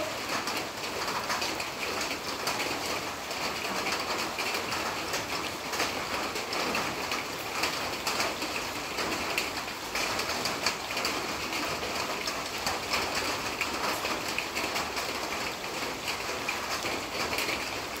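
Monsoon rain falling steadily: an even hiss of rain with many small drop hits on surfaces.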